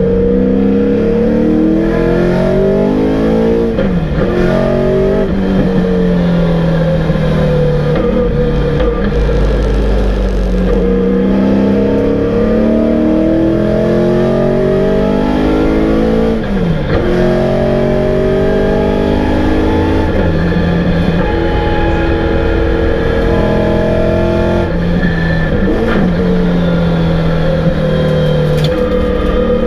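The V8 engine of a 1991 VN Commodore touring car at full racing load, heard from inside the cabin: its note climbs steadily through each gear and drops sharply at the gear changes, several times over.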